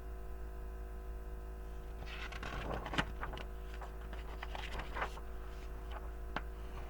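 Picture-book page being turned: paper rustling from about two to five seconds in, with a few sharp clicks, over a steady mains hum.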